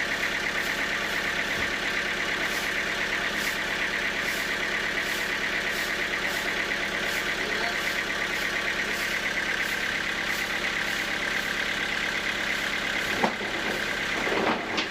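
Sawmill machinery running steadily, with a sharp click about thirteen seconds in.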